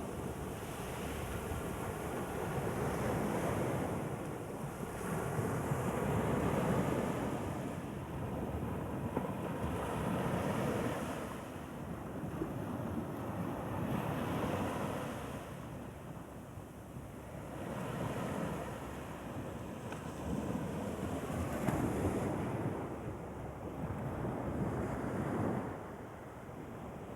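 Sea waves breaking and washing on the shore, the noise swelling and easing in surges every few seconds, with wind buffeting the microphone.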